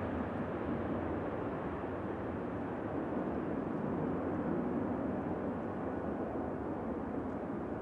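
Jet airliner engines, a steady rumbling noise with no clear pitch.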